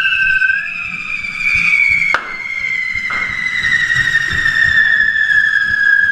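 Correfoc fireworks whistling: two or more high shrieking tones at once, each sliding slowly downward, as the spark-spraying fountains burn. A single sharp crack comes about two seconds in.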